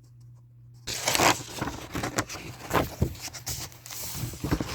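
Paper rustling and crinkling as the pages of a picture book are handled and turned, with many small crackles over about four seconds, starting about a second in.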